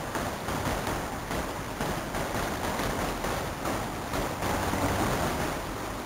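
Shallow creek water running over rocks, a steady rushing noise.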